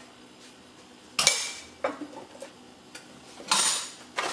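Kitchenware clinking and clattering twice, a sharp clink about a second in with a short ringing tone, and another clatter a little past three seconds in.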